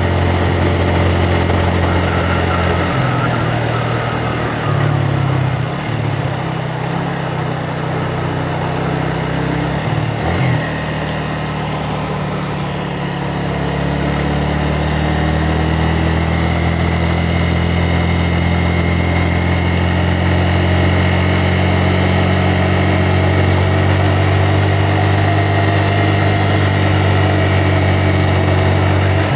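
Yamaha Vixion motorcycle's single-cylinder four-stroke engine running. Its note steps in pitch a few times in the first ten seconds, then holds steady.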